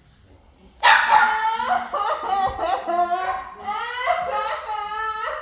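Puppy whining and yipping in a run of high, wavering cries that starts about a second in and carries on without a break.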